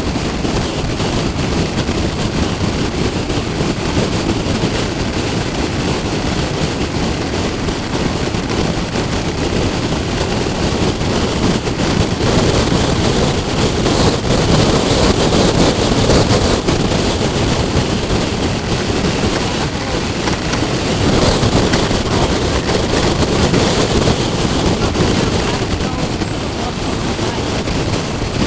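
Wind buffeting the microphone on a moving motorcycle, a steady low rush mixed with the motorcycle's road and engine noise, swelling a little louder twice midway.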